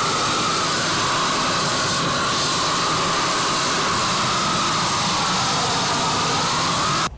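Fired burners heating the lead-melting tubs, giving a loud, steady rushing roar with a slowly wavering hum in it, which cuts off suddenly at the very end.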